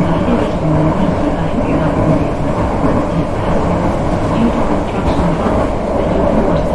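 Vienna U-Bahn metro train running on the track, heard from inside the passenger car as a loud, steady rail noise.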